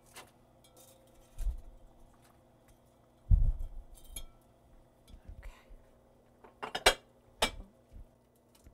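Cookware and utensil handling at the stove: two dull thumps in the first few seconds, the louder about three seconds in, then a few sharp clinks of pots or utensils about seven seconds in, over a faint steady hum.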